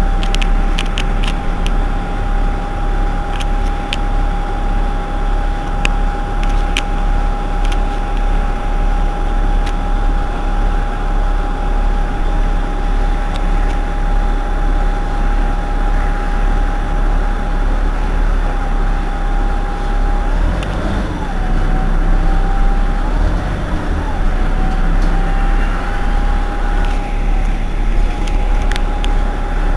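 Irisbus Citelis 18 articulated bus idling at a stop: a steady engine rumble under a constant whine, which dips in pitch a few times past the middle and then settles again. A few light clicks come in the first seconds.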